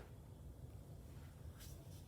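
Near silence: faint low room hum with a couple of soft ticks near the end.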